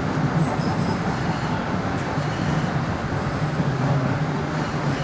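MBTA Green Line light-rail car running between stops, heard from inside the car: a steady rumble of wheels on rail and running gear, with no sudden events.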